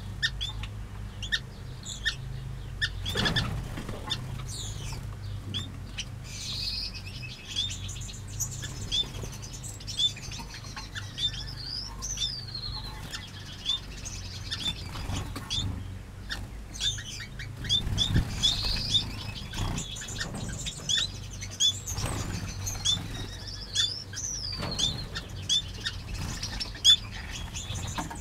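Small aviary finches calling: many short, high chirps repeated over and over, with longer warbling song phrases now and then. A steady low hum runs underneath.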